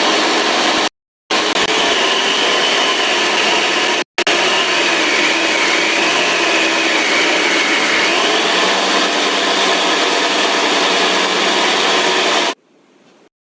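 Homemade electric belt sander running and sanding: a steady coarse grinding noise with a faint high whine that wavers in pitch. It cuts out abruptly about a second in and again briefly about four seconds in, and drops away near the end.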